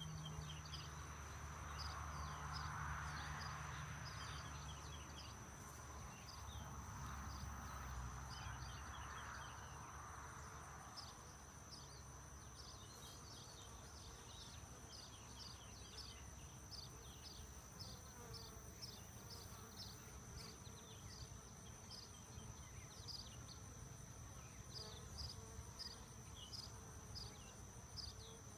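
Honey bees buzzing around an opened hive, a low drone that is strongest in the first ten seconds and then fades, over the steady rapid chirping of crickets.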